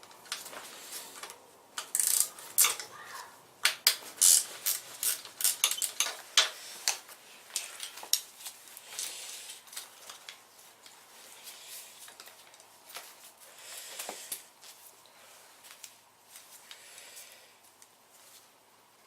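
Metal hand tools and small metal parts clinking and clattering, with irregular sharp clicks and knocks that are loudest and busiest in the first half, then thin out.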